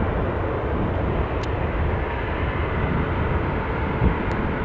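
Airbus A350-1000's twin Rolls-Royce Trent XWB-97 turbofans at taxi power, a steady rumble and rush of jet noise as the airliner taxis past.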